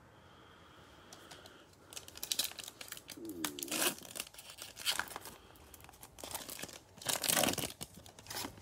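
Foil Panini Prizm football card pack crinkling and tearing as it is ripped open by hand. The crackling comes in repeated bursts starting about two seconds in.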